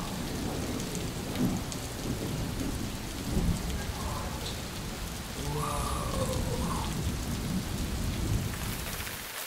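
Thunderstorm sound effect playing in a haunted-forest exhibit: steady rain with low rumbling thunder. The low rumble drops away suddenly near the end.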